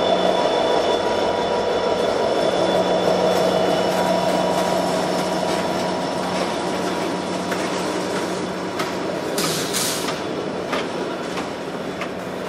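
Freight train of covered grain hopper cars rolling past at close range: a steady rumble of wheels on rail with a hum from the receding diesel locomotive that fades over the first half. Scattered wheel clicks, and a brief sharp high-pitched scrape about ten seconds in.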